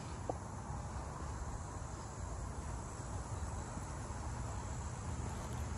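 Steady outdoor insect chorus with a faint high, even trill, over a low rumble.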